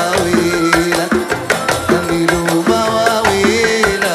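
Yemeni folk song with oud and keyboard playing the melody over a steady beat of hand drums: goblet drums and a jingled frame drum.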